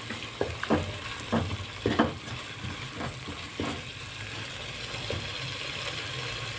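Masala paste sizzling as it fries in a nonstick pot, with a wooden spoon knocking and scraping against the pot while stirring. The knocks come every half second or so for the first few seconds, then only the steady sizzle goes on.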